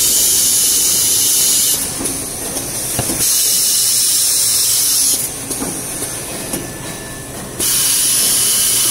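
Jumbo-roll toilet paper production machinery with a loud compressed-air hiss that switches on and off abruptly, three spells of about two seconds each, over faint machine knocks.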